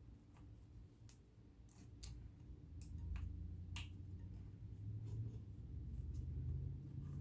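Scattered light clicks and taps of tools and metal parts being handled while a vintage sewing machine is cleaned, over a low steady hum that grows a little louder about halfway through.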